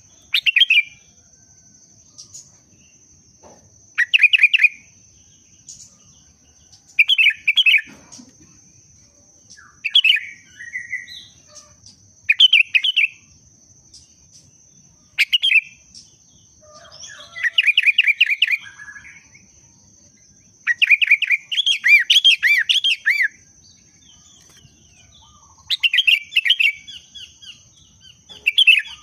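Sooty-headed bulbul (kutilang) singing, a bird in breeding condition in full song: short bubbly phrases of quick notes repeated every two to three seconds, with two longer runs in the middle. A faint steady high whine sits under it.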